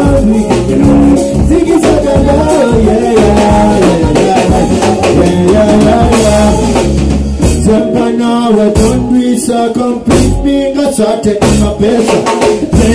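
Live band playing loudly: drum kit, bass guitar, keyboards and electric guitars, with a male lead singer singing into a microphone.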